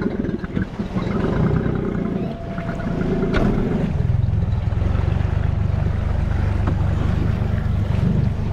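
Outboard motor of a Highfield Sport 390 RIB running at low speed as the boat moves off, with water sloshing along the hull. A single sharp click comes about three and a half seconds in, after which the engine runs steadier and fuller.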